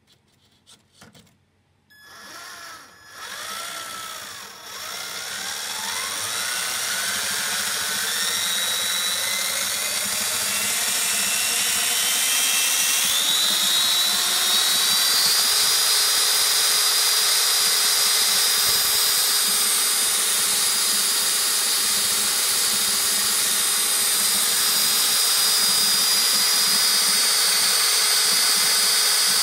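Electric drive motor and drivetrain of an R/C Scania truck spinning its wheels up after a few clicks. The whine climbs steadily in pitch for about twelve seconds, then holds high and steady at full speed over a rushing running noise.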